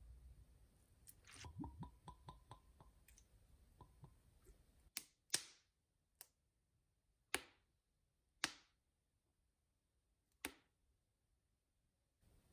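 Quiet kitchen handling of a wooden spoon and sauce bottles over a glass mixing bowl: soft small taps at first, then six sharp clicks at uneven intervals over about five seconds.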